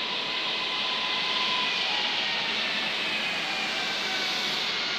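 Regional electric multiple unit passing close by and slowing, its motors giving a whine that slowly falls in pitch over a steady rumble of wheels and running noise.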